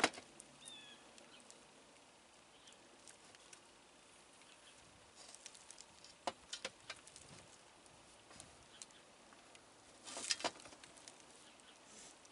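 Faint scattered clicks, taps and rustles of hands handling an insulated flexible duct at its joint with the solar heater's vent, with small clusters of taps about six seconds in and again about ten seconds in.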